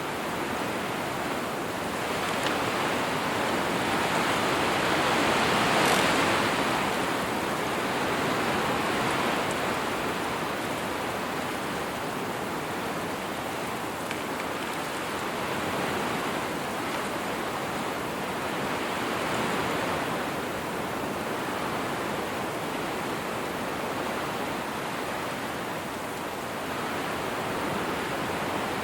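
Wind blowing across open countryside, a steady rushing that swells in gusts, the strongest about six seconds in.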